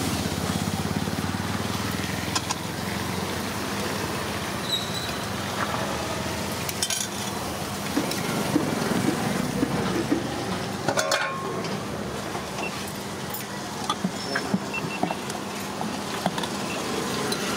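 Metal cookware being handled: a ladle clinking against an aluminium batter pot and small iron appam pans knocking and scraping on the burners, a few sharp clinks scattered over steady background noise.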